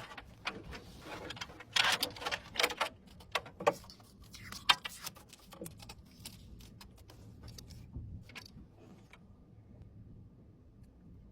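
Irregular small clicks and clattering of hard parts being handled, with a dense burst of rustling and knocks about two seconds in, thinning out to occasional ticks and then quiet near the end.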